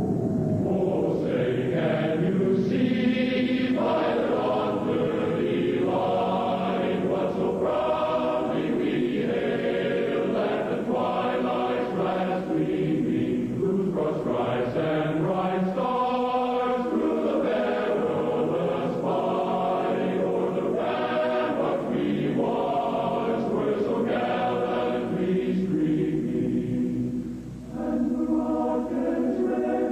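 Choir singing a national anthem slowly in long held phrases, with one short break near the end.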